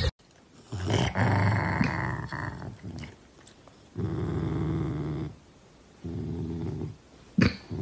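A dog growling in four separate low growls, each about a second long, with short pauses between them.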